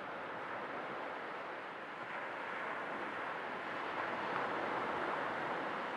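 Sea waves washing on the shore as a steady rush of surf, swelling a little about halfway through.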